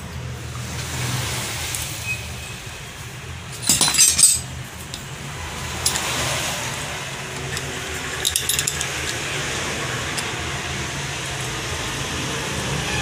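Metal clinking from a valve spring compressor working on a Hero Pleasure scooter's cylinder head as the valve springs, cone washers and cotter locks are fitted: a loud cluster of sharp clinks about four seconds in and a shorter one about eight seconds in, over a steady low hum.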